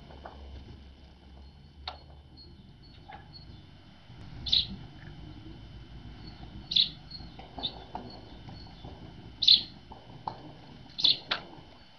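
Great tits calling: a handful of short, high chirps a second or two apart, with a few fainter chirps between them.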